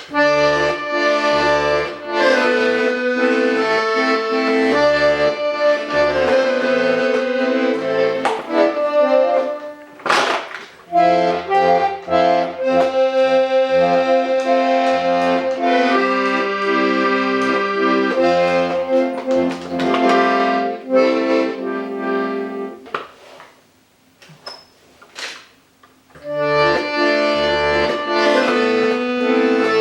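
Hohner Corona IIIR diatonic button accordion playing a melody on tremolo reeds, with bass and chord buttons pulsing beneath it. The playing breaks off for a couple of seconds about two-thirds of the way through, then picks up again.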